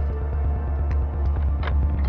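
Background music with a deep, steady pulsing bass and held tones, and a few faint sharp clicks near the end.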